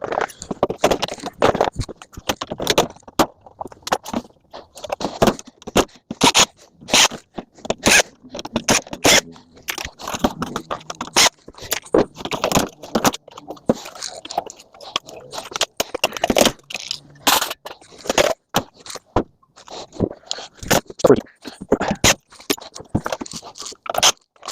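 Scrap metal being handled and sorted, sped up: a rapid, irregular clatter of clanks and scrapes.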